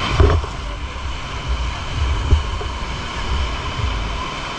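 Wind buffeting the microphone in uneven gusts, over the steady wash of surf breaking on the beach.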